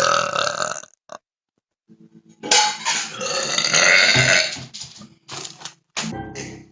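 A woman burping repeatedly and loudly: one burp tailing off in the first second, a long drawn-out burp of about two seconds, then two shorter burps near the end.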